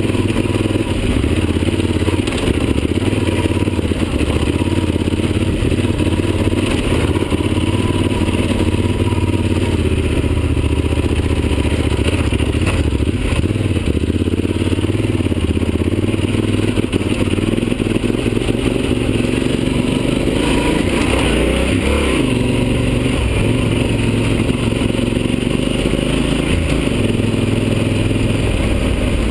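Yamaha Super Ténéré's parallel-twin engine running at low revs while the motorcycle is ridden over a rough dirt trail, heard from the bike itself. The engine note shifts with the throttle, with a brief rise and fall in revs a little past the middle.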